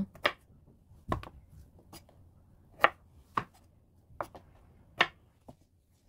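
Kitchen knife chopping the woody bases off fresh angelica tree shoots (두릅) on a wooden cutting board: about seven sharp knocks of the blade on the board, irregularly spaced roughly a second apart.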